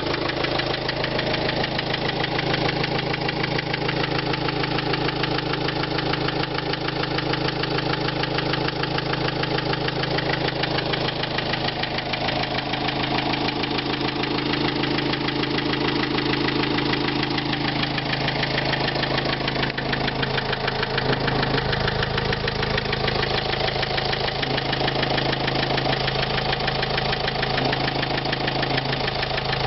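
Renault Trafic 1.9 dCi four-cylinder turbodiesel engine running at idle with a fast, even knock, the engine knock that is its fault.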